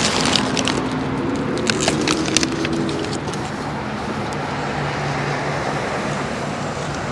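Steady road traffic noise, with sharp crunching clicks from a crisp taco being chewed during the first three seconds.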